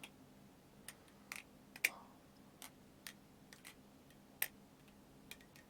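OSP Matrix balisong being flipped: about a dozen sharp, irregular metallic clicks as the handles swing around and clack against the blade. The two loudest clacks come just before two seconds in and about four and a half seconds in.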